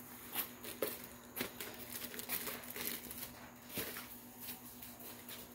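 Crinkling and rustling with scattered light clicks and knocks, from handling plastic parts and packaging of a flat-pack prop, over a faint steady hum.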